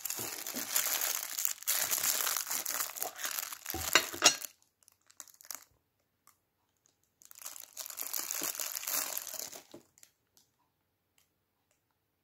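Clear plastic wrapping crinkling as it is handled around a small metal candle tin, in two spells: about four seconds at first, then about two and a half seconds more after a pause. A sharp knock sounds about four seconds in.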